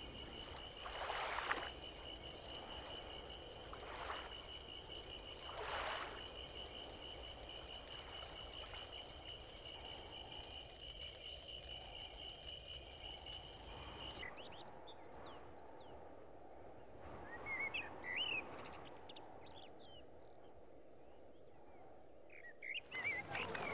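Faint night-time nature ambience: a steady, pulsing high trill of frogs and insects with a few separate calls. About fourteen seconds in, the trill stops abruptly and scattered bird chirps follow.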